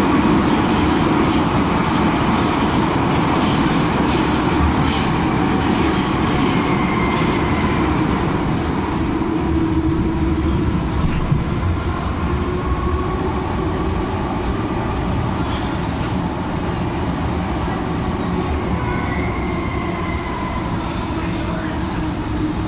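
MTR M-Train electric multiple unit heard from inside the car, running through a tunnel: a steady rumble of wheels on rail with a faint motor whine that shifts in pitch. It eases slightly near the end as the train reaches a station platform.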